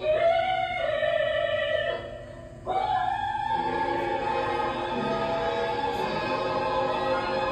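A song: a singing voice holds long notes over instrumental music, breaks off about two seconds in, and comes back just under three seconds in with a new long held note.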